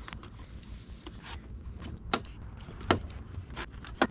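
Plastic push-pin retainer clips on a 2018 Ford F-150's upper radiator cover panel being pried loose by hand. There are scattered small clicks, with three sharper snaps in the second half.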